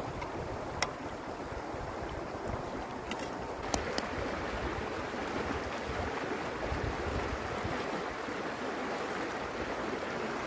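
Shallow river rushing over rocks, a steady wash of water, with wind gusting on the microphone. A few light clicks of kitchenware sound in the first half.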